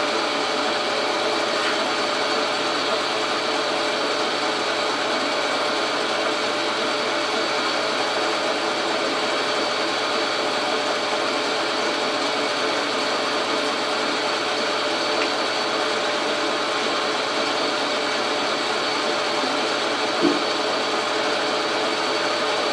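Logan metal lathe running steadily while turning a 2-inch aluminum rod under power feed: several unchanging tones over a constant hiss. One short knock about twenty seconds in.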